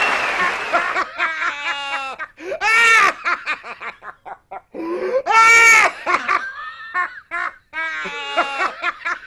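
Someone laughing hard and high-pitched: quick runs of short laughs, broken by two long loud whooping peals about three and five and a half seconds in.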